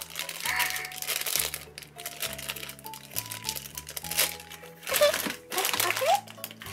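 Crinkly plastic wrapper bags crumpling and rustling as they are handled, in irregular bursts, the loudest near the end, over background music with held notes.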